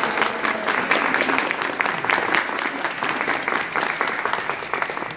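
Audience applauding: many hands clapping in a dense, even patter, easing off slightly near the end.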